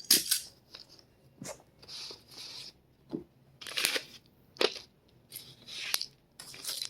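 Small toys being handled: irregular rustling and crinkling with a few sharp clicks.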